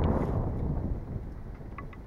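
Wind buffeting the microphone as a low rumble, strongest at the start and easing off, with a few faint short ticks.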